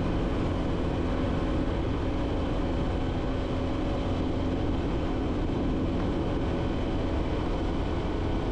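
Motorcycle engine running steadily in fourth gear on an uphill climb, labouring under load even with the throttle open, over a steady rush of wind and road noise.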